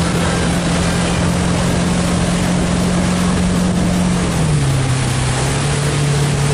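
Motorboat engine running steadily under load while towing a tube, over the rush of water and spray from the wake. The engine note drops a little about four and a half seconds in, as the throttle eases.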